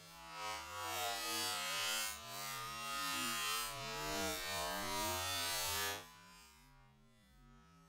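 Plastic electric-fan blades crackling and creaking as a car tyre rolls over and crushes them. The noise cuts off suddenly about six seconds in, leaving only a faint hum.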